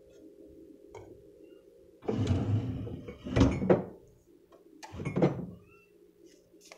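Wooden drawer being slid shut, a scraping run about two seconds in that ends in two sharp thunks, followed by another knock against the cabinet a second or so later.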